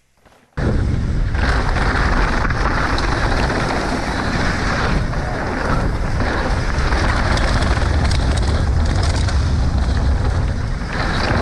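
Wind rushing over a bike-mounted camera's microphone and a mountain bike's tyres rumbling over dry, choppy dirt at downhill race speed. The noise starts abruptly about half a second in and stays loud and steady.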